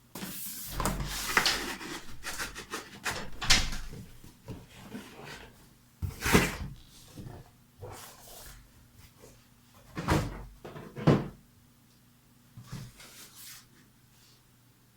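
Graphics card retail box being unboxed by hand: cardboard scraping and rustling with several sharp knocks of the box and its flaps, quieter for the last few seconds.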